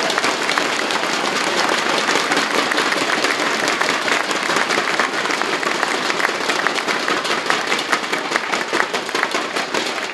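Crowd applauding: dense hand clapping that thins out toward the end.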